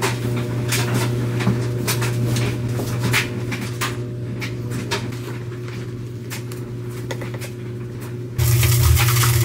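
A steady appliance-like motor hum with scattered clicks and knocks of things being handled. A little over eight seconds in, a louder rushing noise starts over it.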